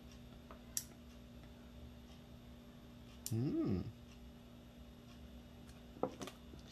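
A pet's single short call, about half a second long, rising and then falling in pitch. Around it are a few faint clicks of small gearbox parts and a tool being handled.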